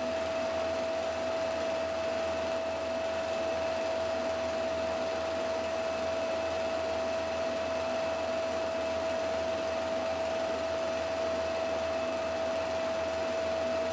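Film projector running steadily: an even motor and fan whir with a constant whine, as a reel of film plays through it.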